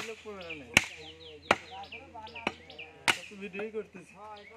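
Heavy meat cleaver chopping through beef onto a round wooden chopping block: five sharp chops, roughly one a second, stopping about three seconds in.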